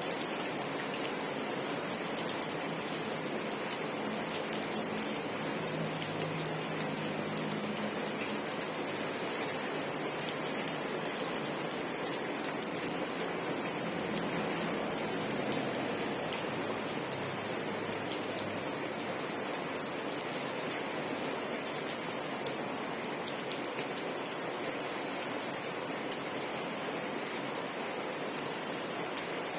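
Steady rain falling, an even continuous hiss of drops with no let-up.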